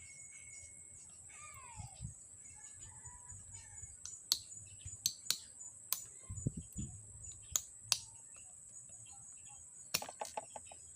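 Sharp clicks and taps from handling electric fan motor parts during disassembly: a handful spread over a few seconds, then a quick cluster near the end. Birds chirp in the background over a steady high insect drone.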